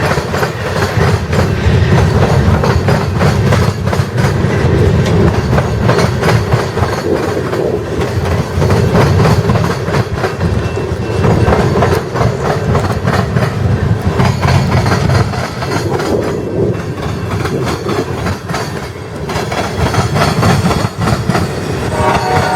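A train passing close by: the steady rumble of rolling railroad cars, with a constant clatter of wheels over rail joints.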